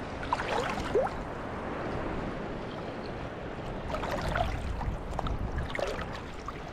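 Calm, shallow seawater sloshing and lapping gently around a wader's legs, a soft, steady watery wash.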